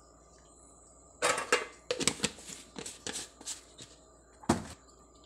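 Clatter and knocks of kitchen items being handled and set down on a countertop, a quick run of them and then one sharper knock about four and a half seconds in.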